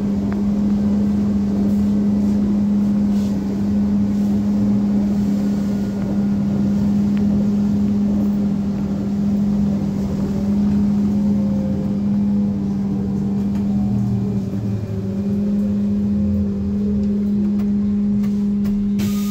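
Dnipro-T203 trolleybus running, heard from inside the passenger cabin: a loud steady electrical hum over low road rumble. In the second half a fainter whine from the electric drive glides lower in pitch.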